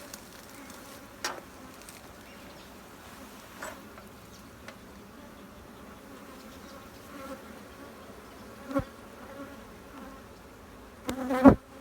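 Honey bees buzzing steadily around an open hive, a dense, even hum. Several sharp knocks sound over it, the loudest a quick cluster near the end.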